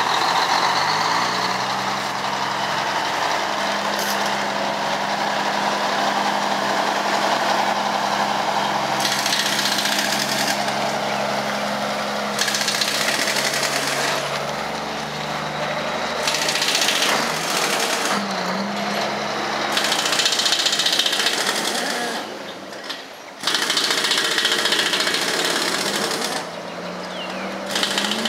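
1982 Mack R Model diesel truck engine running as the bare rolloff chassis pulls away and drives past, its pitch rising about a second in and then holding steady. An impact wrench hammers in repeated bursts of one to three seconds over it from about nine seconds on.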